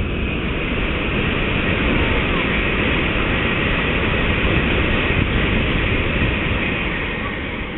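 Shinkansen bullet train passing at speed: a rushing roar of air and wheels that builds over the first second or two, holds, and fades near the end.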